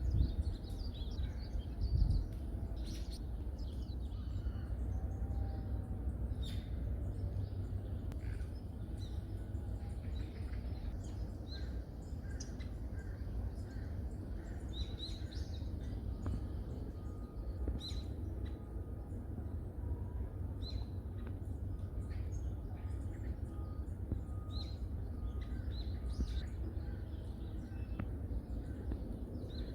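Wild forest birds calling: many short scattered chirps and calls, with a run of short evenly spaced notes at one pitch through the middle stretch, over a steady low rumble. A low thump about two seconds in.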